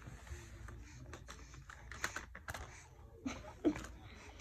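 Light, irregular clicks and knocks of a small plastic toy car being handled and knocked about by a baby.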